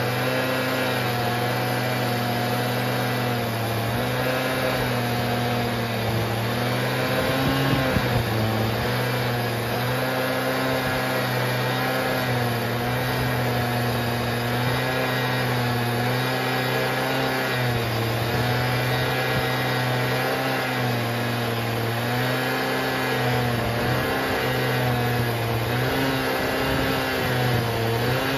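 Stihl MS880 two-stroke chainsaw running at high revs under load, ripping a yew log along a Logosol F2 chainsaw mill. The engine pitch holds steady with slight wavering as the cut goes on, with a brief dip and rough patch about eight seconds in.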